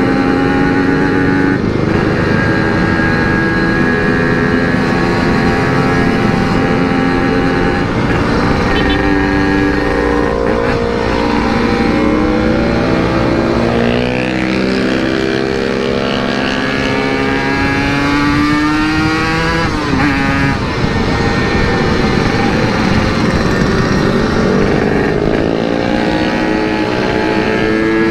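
Yamaha RX-King 135 cc single-cylinder two-stroke engine through an aftermarket CRC series exhaust, running hard while ridden, its revs rising and falling with throttle and gear changes. About halfway through the pitch climbs steadily for several seconds, then drops sharply.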